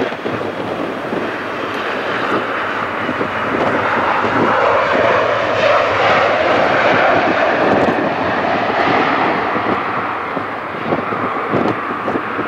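Jet engines of a KLM Boeing 737 on its landing roll: a steady rushing roar that builds a few seconds in, is loudest around the middle, and then eases slightly.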